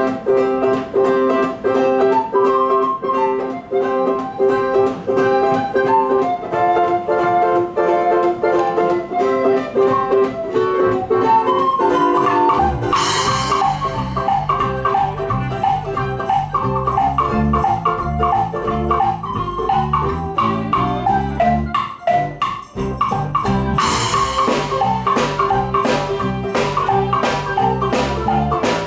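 Live band playing an instrumental passage: a melodic opening of plucked or chimed notes, then bass and drum kit come in about twelve seconds in, with cymbal crashes twice.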